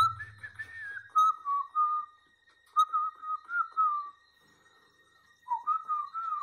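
A tune whistled in three short phrases with brief pauses between them, the backing music having dropped out.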